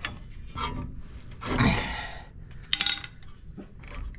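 Metal hand tools clinking and scraping against a Ford F-150's front brake caliper and C-clamp. There is a longer rasping scrape about one and a half seconds in and a sharp metallic clink near three seconds.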